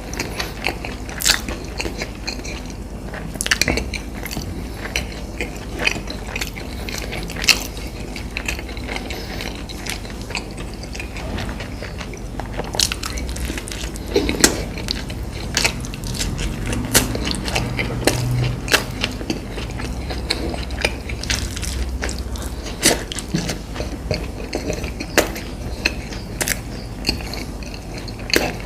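A person chewing crunchy food close to the microphone: many quick, irregular crisp crunches and mouth clicks.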